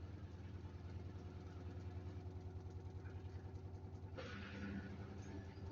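Samsung washing machine running on a cotton wash: a steady low motor hum with a fast even pulsing, and a brief rushing noise about four seconds in.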